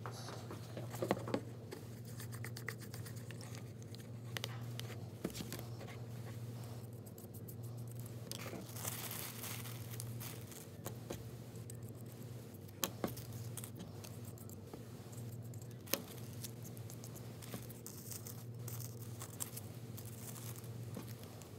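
Thin tissue paper rustling and crinkling as it is handled and laid onto a cardboard card, with a few sharp clicks over a steady low hum.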